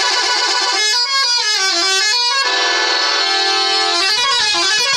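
A bus's telolet musical horn, a multi-tone horn, playing a tune: quick runs of stepped notes, a sliding, wavering passage, then a steady chord held for about a second before the stepping notes start again.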